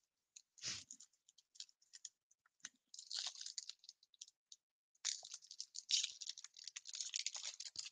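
Foil trading-card pack crinkling and crackling as it is torn open by hand, in scattered bursts that grow denser from about five seconds in.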